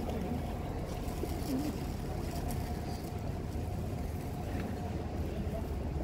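Steady low rumble with a faint steady hum above it.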